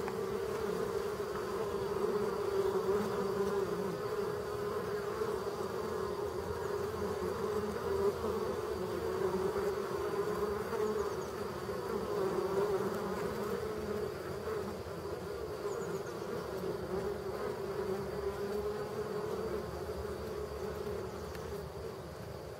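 Honeybees buzzing at a hive's flight entrance: a steady, continuous hum of many bees, growing a little fainter over the last several seconds.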